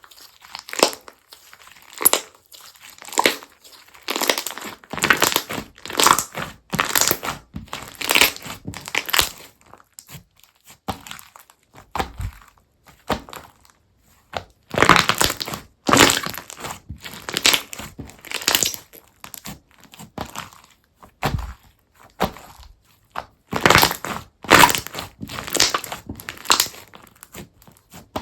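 Hands squeezing and pressing a crunchy slime, giving repeated crackling crunches about once or twice a second, in runs with short pauses between them.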